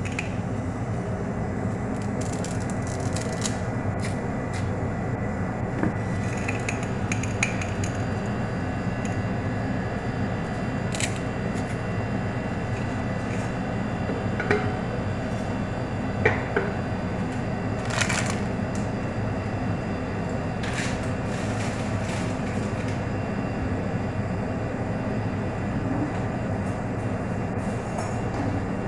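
Steady low hum and rush of a gas stove burner heating an aluminium pot of water, with a few sharp clicks and light taps as dry noodles are handled and dropped into the pot.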